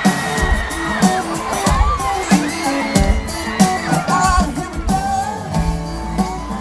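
Live country-pop band playing through a large PA, with a steady kick drum and bass, while the crowd whoops and screams over the music.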